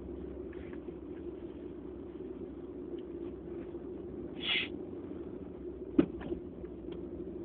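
Steady low background hum, with a brief soft hiss about four and a half seconds in and a sharp click at about six seconds.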